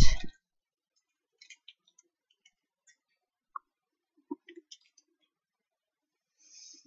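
A loud, short thump right at the start, then faint scattered clicks and crinkles from Pokémon booster pack foil wrappers being handled and set down on a table.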